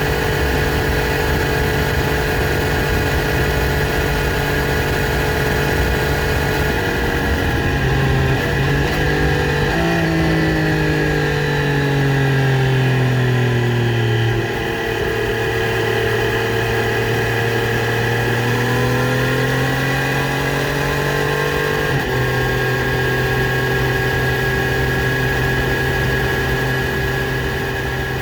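Triumph Street Triple RS 765 cc inline-three engine through its stock exhaust, running at steady mid revs. Around ten seconds in the note falls for a few seconds, then slowly climbs, with brief steps in pitch as the revs change.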